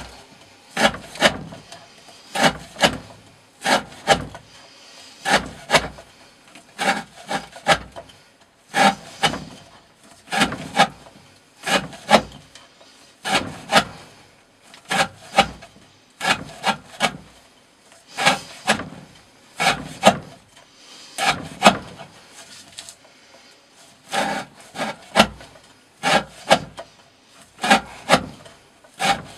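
A D2-steel knife blade slicing through thick 20 mm rope over and over: short, sharp rasping cuts in a steady rhythm, about one to two a second, often in pairs.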